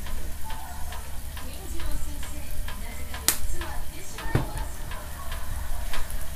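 Sausages and eggplant slices sizzling on a tabletop hot plate, with scattered clicks and knocks of chopsticks and tableware; the sharpest knock comes a little past the middle.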